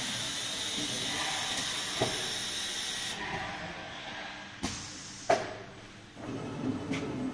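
CNC oscillating-knife foam cutting machine running with a steady air hiss that eases off about halfway through. Three sharp clicks cut in, the loudest about five seconds in, and a low machine hum rises near the end.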